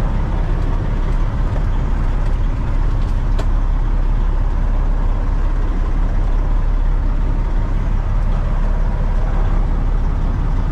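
Heavy truck diesel engine idling steadily, a constant low rumble heard from inside the cab.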